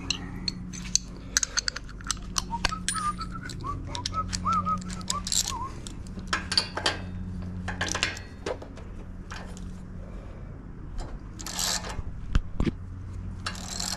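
Socket ratchet and steel hand tools clicking and clinking as a spark plug is loosened on a Kawasaki FR691V mower engine: scattered sharp metallic clicks. A man whistles a few soft notes about three to five seconds in.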